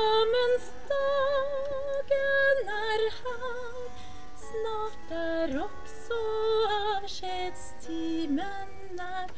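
A woman singing a song solo, holding each note for about half a second to a second with a light vibrato.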